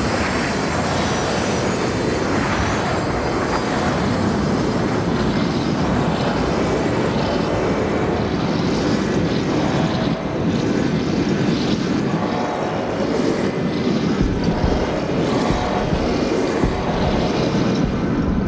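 Steady, loud rumbling drone from an overturned, smoking car wreck, with scattered faint crackles.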